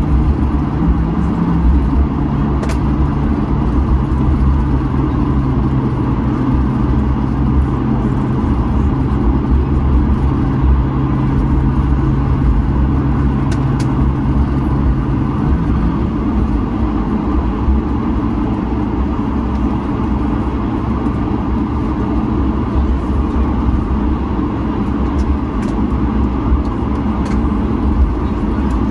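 Cabin noise inside an Airbus A220-100 taxiing after landing: a steady rumble from the Pratt & Whitney PW1500G geared turbofans at taxi power and the aircraft rolling. A low hum under it drops out about halfway through.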